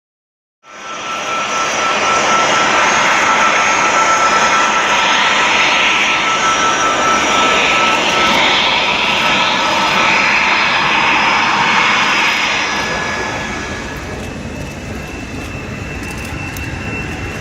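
Boeing C-17 Globemaster III's four turbofan engines running loud, a broad roar with a steady high whine on top. It starts abruptly under a second in and eases off somewhat about thirteen seconds in.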